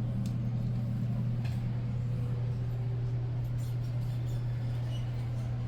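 A steady low hum with a few faint clicks, the background drone of a large building's interior.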